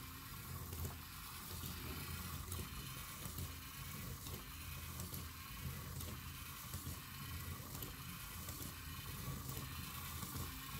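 LEGO Mindstorms EV3 walker robot running: its electric motors and plastic gear trains whirring steadily, with a regular rhythm as the legs cycle.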